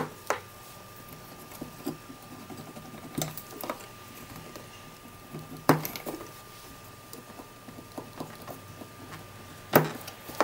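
Sharp clicks and knocks of a Kriesler 11-60 valve radio's metal chassis and parts being handled, about half a dozen spread across the few seconds, the loudest at the start, midway and near the end.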